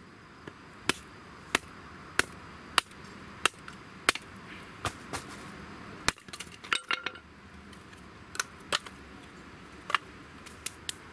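Hatchet splitting kindling on a wooden chopping block: a run of sharp chops about two-thirds of a second apart, a brief cluster of lighter knocks and clatter around the middle, then a few more chops near the end.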